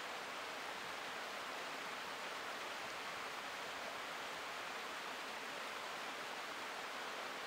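A shallow stream running steadily over rocks, an even rushing of water with no change.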